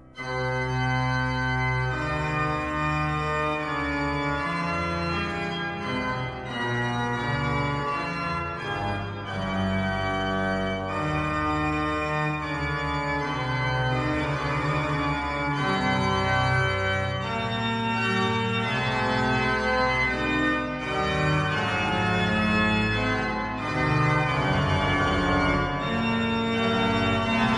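Instrumental music of sustained, held chords that change every second or two.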